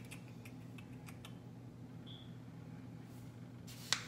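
Faint scattered taps and clicks over a steady low electrical hum. Near the end there is one sharper, louder tap and rustle as a hand takes hold of a paper flour bag on the counter.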